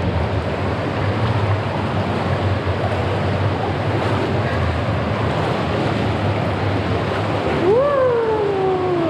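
Steady, loud rush of an underground cave stream's water as people wade through it. Near the end a person lets out one long cry that rises sharply, then slides slowly down.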